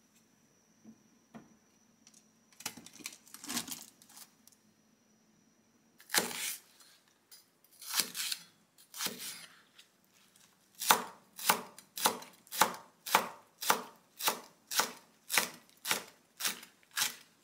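Chef's knife chopping a green onion on a plastic cutting board: a few separate cuts, then from about eleven seconds in a steady run of about two strokes a second as it is minced. In the first few seconds, a few light knocks and a short clatter as a bamboo steamer is set onto the pan.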